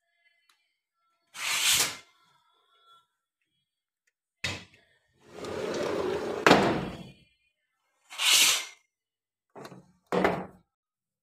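Sliding window panes being pushed along their metal tracks: a series of short scrapes, the longest ending in a sharp knock about six and a half seconds in as a pane reaches the end of its frame.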